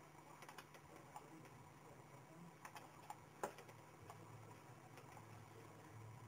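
Faint, scattered clicks of a computer mouse button as folders are opened, one about three and a half seconds in louder than the rest, over a low steady hum.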